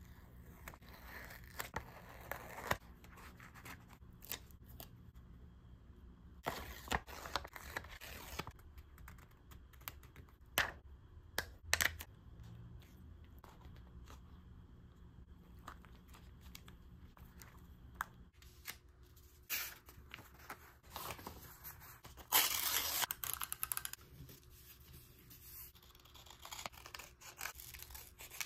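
Close-up paper-craft sounds from journal decorating: paper or tape being torn and cut with scissors. There are a few longer tearing strokes, one about seven seconds in and a louder one about twenty-three seconds in, with sharp clicks and small rustles between.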